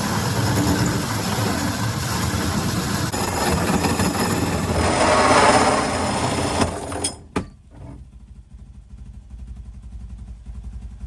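A power saw cutting the hole for a roof vent fan through a truck roof, running loud and steady, then stopping abruptly about seven seconds in, followed by a click and a quiet low hum.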